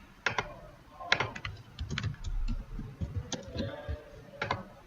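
Computer keyboard and mouse clicking: irregular sharp clicks, a few a second.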